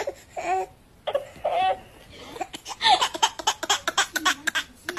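A baby laughing: a few short vocal sounds, then a rapid run of laughing bursts through the second half.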